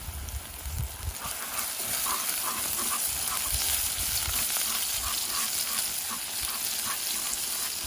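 Chopped scallions frying in hot oil in a pot, sizzling steadily while chopsticks stir them. The sizzle gets louder about a second in.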